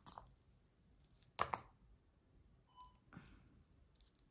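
Metal costume jewelry clinking and rattling briefly as a hand sifts through the pile, once sharply about a second and a half in, with softer rustles later.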